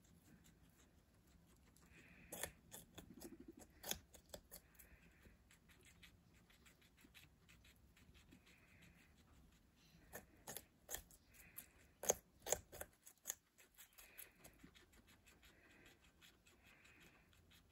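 Guinea pig biting and chewing raw red bell pepper: crisp crunching clicks in two bouts, one a couple of seconds in and a louder one past the middle, quiet in between.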